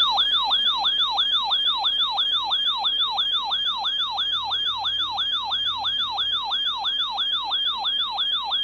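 Electronic siren-style emergency alert tone, a fast yelp that sweeps down in pitch about three or four times a second, sounding as the attention signal for a flash flood warning.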